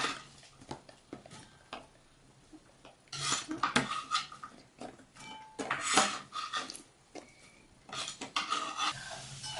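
Cardboard jigsaw puzzle pieces being picked up, slid and tapped down on a wooden table: light, scattered clicks and scrapes, sparse at first and coming in busier clusters from about three seconds in.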